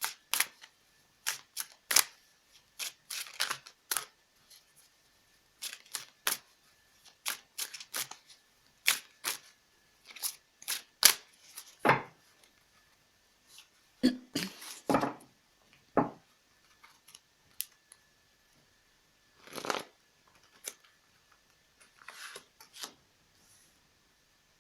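Tarot cards being shuffled and handled: quick, sharp snaps and slaps of cards, coming thick and fast for the first half and more sparsely later.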